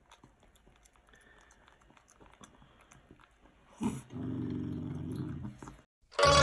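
A cat licks at a squeeze tube of treats with faint small clicks, then growls low for about a second and a half while eating. Loud music cuts in at the very end.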